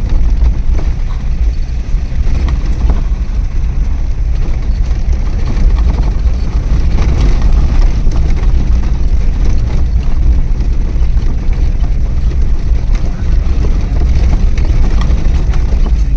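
Car driving along a road, a steady low rumble of engine and tyres.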